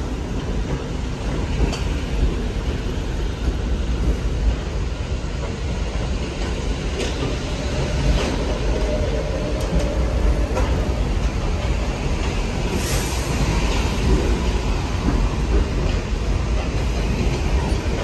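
R46 subway train pulling out of the station and gathering speed past the platform: a steady low rumble of wheels on rail, with a few sharp clicks at rail joints.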